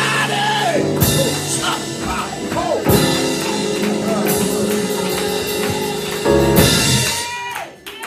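Church music: sustained keyboard chords with drums and cymbal crashes, behind a preacher's shouted phrase. The music dips briefly just before the end.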